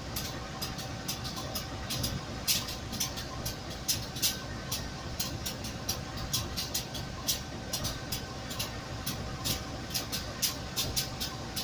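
Diesel engine of a CC 201 locomotive (a GE U18C diesel-electric) running steadily, a low rumble with a steady whine over it. Many short, sharp clicks are scattered irregularly through the sound.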